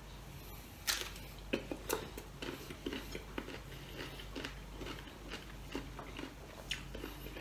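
A person chewing a mouthful of mango with bagoong (shrimp paste): steady, close chews about two a second, starting about a second in.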